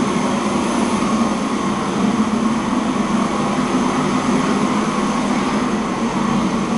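Steady machine hum with a rushing, air-like noise over it, holding an even level.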